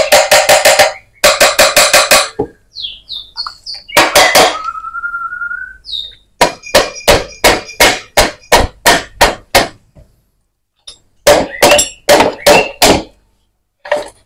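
Hammer tapping on an old Yamaha Vixion's aluminium engine crankcase, to split the two halves, which are stuck because they have never been opened. The taps come in quick runs of several strikes each, with pauses between, and each strike leaves a short metallic ring.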